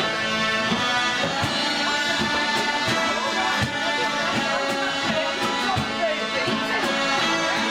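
A group of bellows-blown smallpipes playing a tune together over steady drones.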